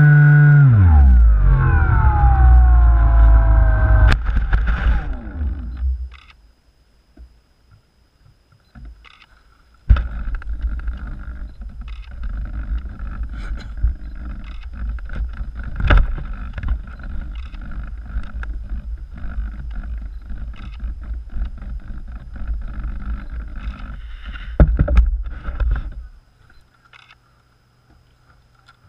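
Skywalker 1680 RC plane's electric motor whining, its pitch dropping steadily over the first few seconds as the throttle comes down, over loud wind rush on the onboard camera. A sharp knock comes about four seconds in and the rush dies away soon after. Later there is rubbing handling noise on the camera with scattered clicks.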